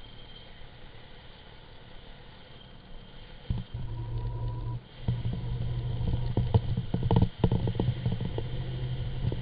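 Gravity bike rolling fast down an asphalt road. A faint hiss at first, then a loud rumble of tyres and wind sets in suddenly about three and a half seconds in, with a run of sharp knocks and rattles from road bumps in the middle.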